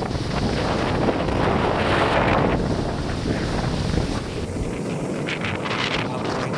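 Strong wind blasting the microphone over the rush of breaking waves, with gusty surges of hiss. The low rumble of the wind eases about four and a half seconds in.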